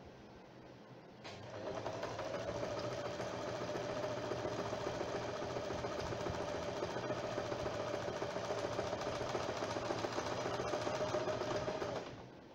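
Usha Janome Wonderstitch electric sewing machine running at a steady speed, stitching red embroidery thread into fabric stretched in a hoop, with a steady hum. It starts about a second in and stops shortly before the end.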